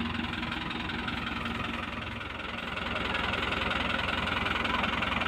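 Diesel farm tractor engines idling with a steady drone, a little louder from about three seconds in.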